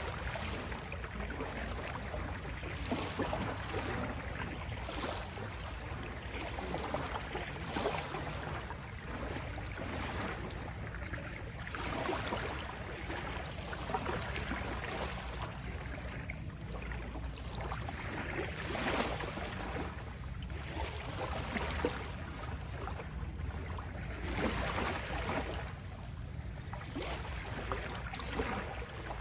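Small sea waves lapping and washing ashore in irregular swells every second or few, over a steady low rumble.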